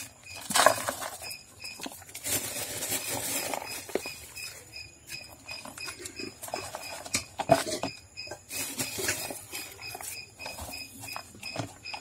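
Compost being scooped with a plastic scoop and poured into small plastic pots: crumbly soil pattering and rustling into the pots, with a few sharp knocks of hard plastic.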